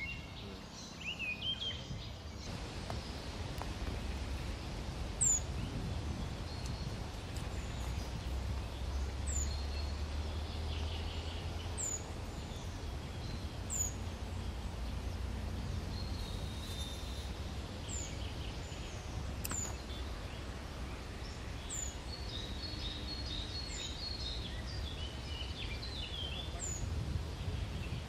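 Outdoor background noise with a steady low rumble, and birds chirping now and then, with a short flurry of chirps near the end.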